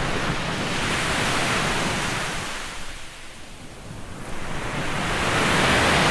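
Surf breaking and washing up a sandy beach: two waves swell and fade, the second louder near the end.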